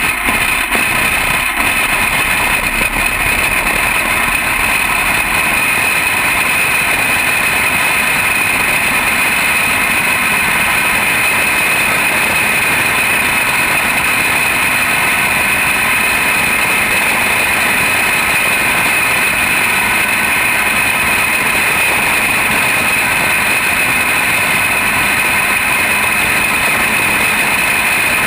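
Single-cylinder engine of a junior champ kart running hard under race load on a dirt oval, heard up close from on board, holding a steady, high-pitched note.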